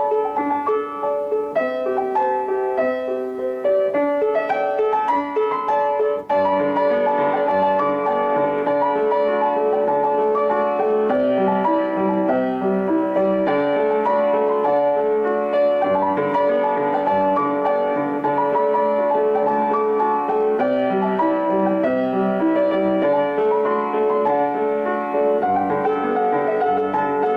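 Piano music, notes following one another in a steady flow. About six seconds in there is a brief break, after which a long held tone joins under the piano and the sound grows fuller.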